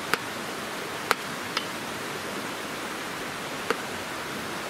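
Metal spoon clinking against the side of a stainless steel stockpot four times while stirring, over the steady rush of a nearby stream.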